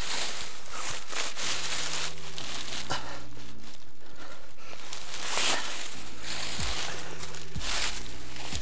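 Steady rustling and crinkling of clothing and brush rubbing close against the microphone as a person scrambles up a brushy slope, with a few knocks of footsteps and gear, the loudest about five and a half seconds in.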